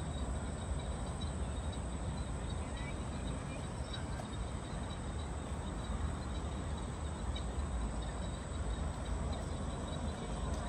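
Steady outdoor background noise dominated by a low rumble, with a faint continuous high-pitched whine above it.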